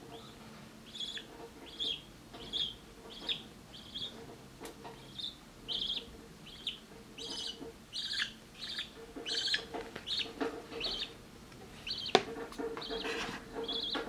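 Budgerigar chick giving short, repeated high begging chirps while being fed formula from a syringe, about one or two a second and coming thicker in the second half. A single sharp knock sounds near the end.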